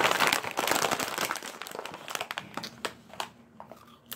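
Plastic chip bag crinkling and rustling as it is handled, dense for the first second or so and then in scattered crackles.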